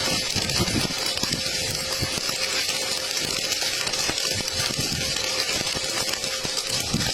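Electric arc welding: a steady crackling hiss of the arc.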